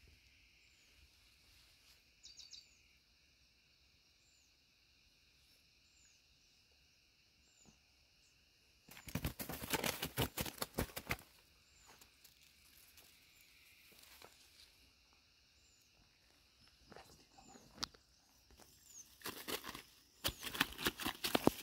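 A plastic bag rustling and crinkling for about two seconds near the middle as a caught fish is handled, with more rustling near the end. Behind it, a steady high insect hum and short bird chirps repeating about once a second.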